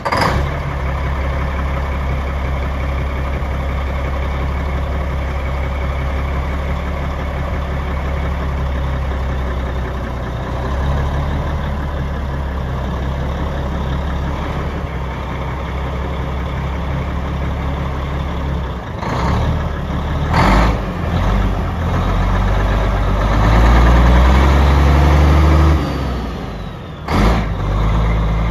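1986 Mack R-model semi tractor's diesel engine idling steadily. After about two-thirds of the way in, its engine speed rises and falls and it runs louder for a few seconds. A few sudden short noises come in near the end.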